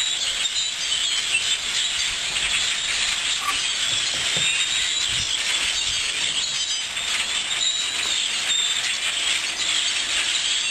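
A large flock of birds chirping together in trees: a dense, steady din of many overlapping high calls.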